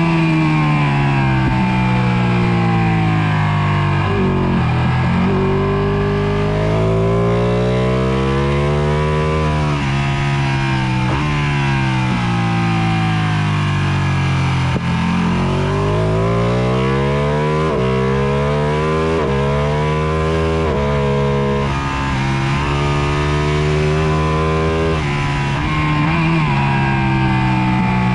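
Sport motorcycle engine at racing speed, heard from onboard. The revs climb through the gears and drop sharply on downshifts into corners, several times over.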